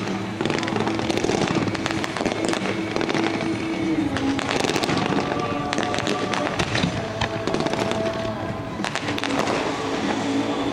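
Fireworks display: a rapid, irregular run of aerial shell bursts and crackling stars that gets thicker around the middle and again near the end, with music playing underneath.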